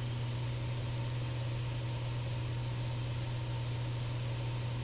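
Steady drone of a Piper Cherokee 235's six-cylinder Lycoming engine and propeller in flight, heard inside the cockpit.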